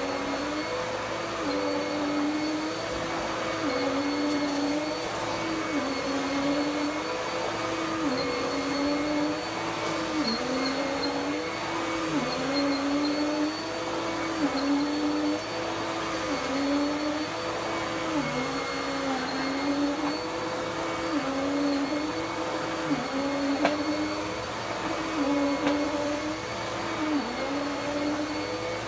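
Dirt Devil Power Max Pet upright vacuum cleaner running, with a steady motor whine and a lower tone that sags and recovers about every two seconds as the machine is pushed back and forth over the floor.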